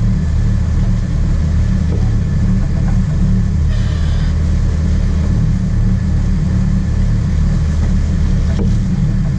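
Sport-fishing boat's engine running steadily with a low drone.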